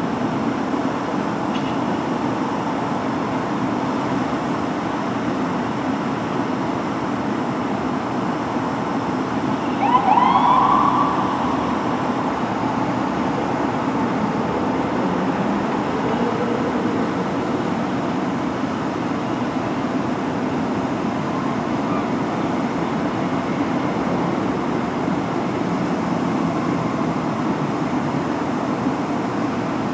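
Fire truck siren giving one loud short rising-and-falling whoop about ten seconds in, over steady city background noise. Fainter siren wails follow, and another rising wail begins near the end.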